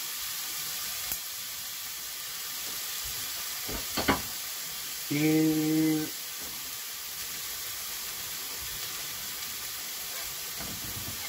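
Marinated beef steak and onion slices sizzling steadily in a frying pan. A knock comes about four seconds in, and about a second later a short steady hum, the loudest sound.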